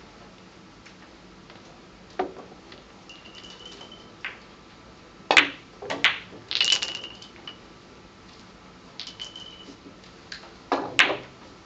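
Sharp clicks of billiard balls striking the cue and each other on a keglebillard table, scattered single knocks with the loudest about five seconds in and near the end, and a quick rattle of several clicks around seven seconds in.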